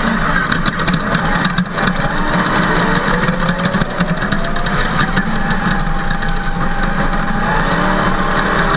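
Chevrolet LS1 V8 of a Jimco off-road race buggy running hard over a dirt track, heard from on board. Its pitch rises from about two seconds in as it accelerates, over a steady rush of noise.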